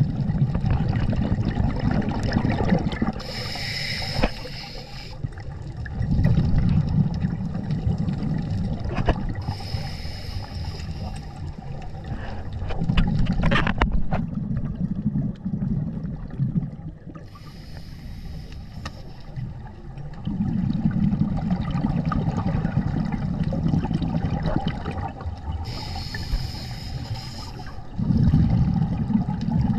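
Scuba diver breathing through a regulator underwater. Each inhale is a short hiss of air, and each exhale is a longer low rumble of exhaust bubbles. It runs as about four slow breaths, one every seven to eight seconds.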